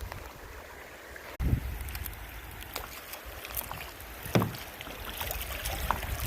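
Kayak paddle strokes splashing in river water, paddled one-handed, with scattered drips and splashes and two louder knocks, about one and a half and four and a half seconds in. A low rumble from wind and handling sits on the microphone underneath.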